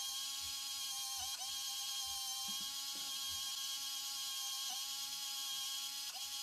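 A small electric motor whining steadily, its pitch dipping briefly every second or few seconds.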